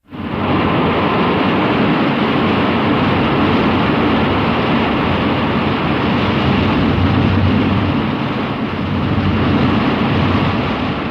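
Rodan monster-movie sound effect: a loud, steady rushing and rumbling noise like jet wind, with no screech or pitched cry in it. It starts abruptly and begins to fade near the end.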